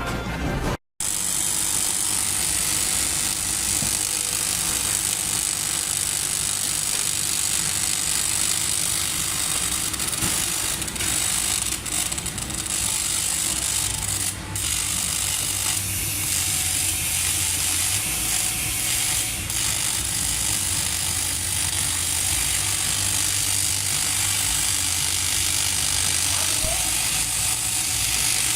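TIG welding arc from a Wim TG 310P welder: a steady, even hiss with a low buzz underneath.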